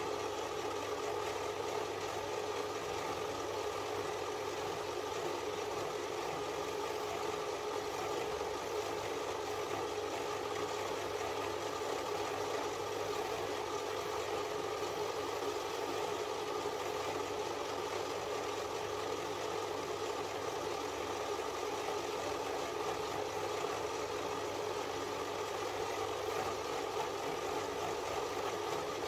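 Bench metal lathe running at a steady speed: an even motor hum with a constant whine that does not change.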